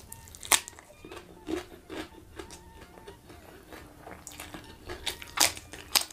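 Crisp crunching bites and chewing of raw bitter melon (pare), close to the microphone. There are sharp crunches about half a second in and around one and a half and two seconds, and two louder ones near the end.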